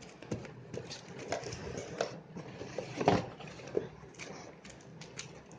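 Hands handling packaging in a cardboard box: rustling and crinkling of tissue paper and plastic wrap with light cardboard knocks and scrapes, and one louder knock about three seconds in.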